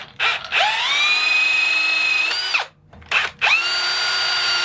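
Cordless drill running in reverse, spinning an easy-out bolt extractor to pull a seized check valve out of a pressure washer pump. The motor whine rises to a steady pitch and runs for about two seconds, stops, then after a brief blip starts again about three seconds in and holds steady.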